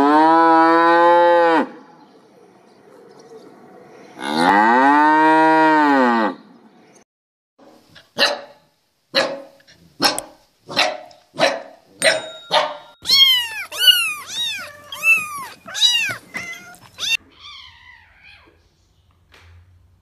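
A cow mooing twice, two long calls that rise and fall. Then puppies barking in a run of about ten short yaps, followed by a quick string of high rising-and-falling cries.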